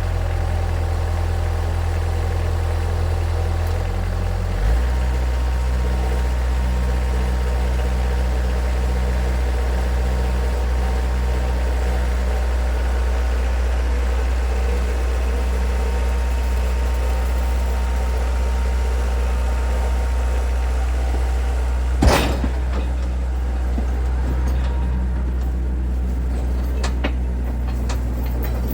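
Kubota F3060 tractor's diesel engine running steadily, its note shifting once about five seconds in, with a single sharp knock about 22 seconds in.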